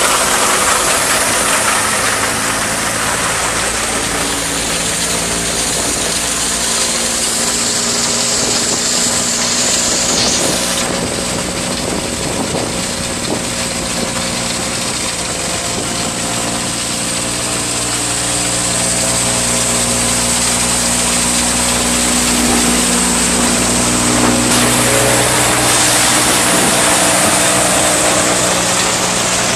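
1939 Case threshing machine running at work, belt-driven by a 1952 Case LA tractor's engine pulling steadily under load: a steady engine hum beneath a broad rushing hiss of the thresher and its straw blower.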